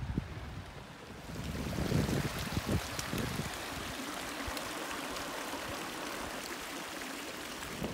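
Shallow mountain creek running over stones: a steady rush of water, with a few low thuds about two to three seconds in.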